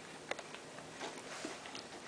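A person eating fried chicken bites and fries: faint chewing with a few small clicks, the clearest about a third of a second in.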